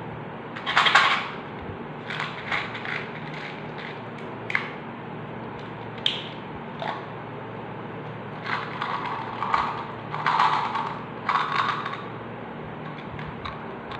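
A plastic candy bottle being handled and opened: bursts of crackling and crinkling as its seal is peeled off, with sharp clicks of the plastic cap and container, and small hard candies tipped out into a hand near the end.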